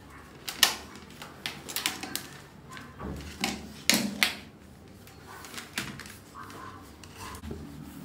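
Handling noise: irregular clicks, knocks and rattles of cables and a plastic keyboard being moved and plugged in on a desk. The sharpest knocks come about half a second in and around four seconds.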